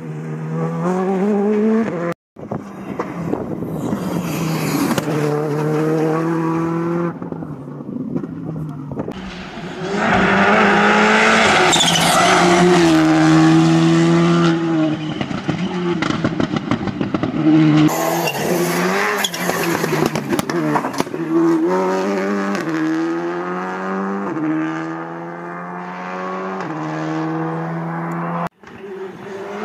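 Skoda Fabia RS Rally2 cars' turbocharged four-cylinder engines accelerating hard through the gears, the pitch climbing and then dropping at each gearchange. A loud stretch of tyre noise comes about ten seconds in. The sound breaks off abruptly twice where passes are cut together.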